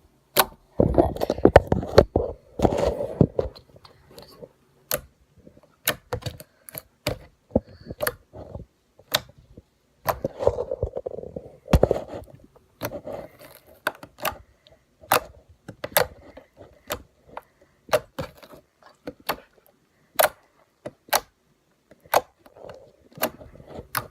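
Thick, cold mint milk slime being squished and worked by hand, giving many scattered sharp clicks and pops, with denser squishing about a second in and again around the middle.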